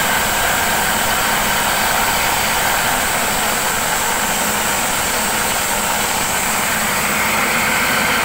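Livestock feed chopping machine running steadily under load, cutting forage and throwing the chopped material out of its chute.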